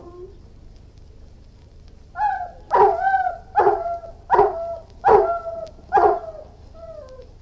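Irish wolfhound barking: after the tail of a howl fades out at the very start, a run of about seven barks begins about two seconds in, a little more than one a second, each bark trailing off in a short drawn-out, falling tone, the last one fainter.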